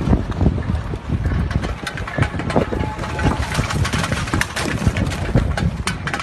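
Storm wind buffeting the microphone in a heavy low rumble, with many sharp crackles and clicks scattered through it.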